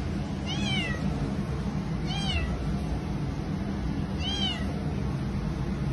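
A cat meowing three times, short rising-then-falling meows about two seconds apart, over a steady low hum.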